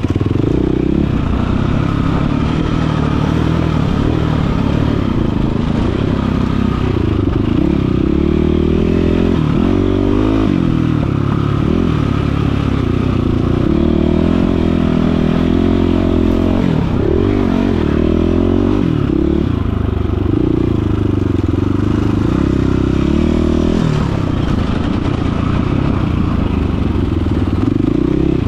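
Dirt bike engine being ridden, its pitch rising and falling over and over as the throttle is opened and closed, with some rattling along with it.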